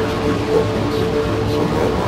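Improvised electronic drone-noise music from Eurorack modular synths and a Korg Microgranny sampler run through effects. A steady, harsh drone holds a low hum and a mid tone under a dense noisy hiss.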